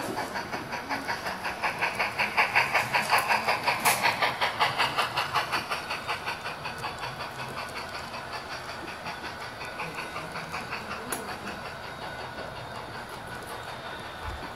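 HO scale model of the Union Pacific FEF-3 4-8-4 steam locomotive 8444 running past with an even, rapid steam chuff and hiss. It is loudest a couple of seconds in as the engine goes by, then fades while its passenger cars roll past on the track.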